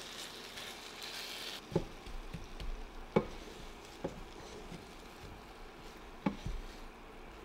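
Glazed chicken sizzling in a frying pan for about the first second and a half, then the hiss stops. After that come a few scattered soft knocks of a wooden spoon stirring the sauce-coated pieces against the pan.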